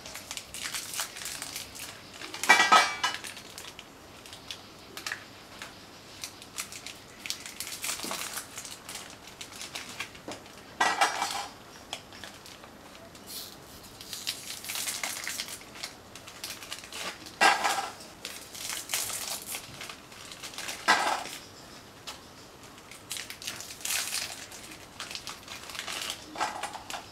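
Small plastic biscuit wrappers crinkling as they are torn open. Oreo biscuits dropped into a stainless steel plate make a short ringing clink five times, several seconds apart.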